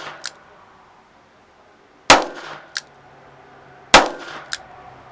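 Two revolver shots, a little under two seconds apart, each followed about half a second later by a fainter sharp crack.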